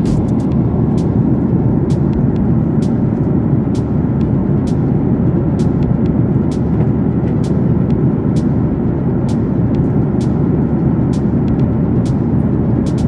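Steady cabin noise of a jet airliner in cruise: an even, low roar of engines and airflow heard inside the cabin, with scattered faint clicks.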